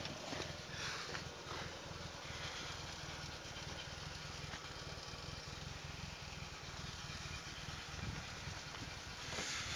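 Mercedes-Benz W123 230E's four-cylinder petrol engine idling steadily with an even low pulse, still warming up after a cold start at −21.5 °C. Brief rustling comes about a second in and again near the end.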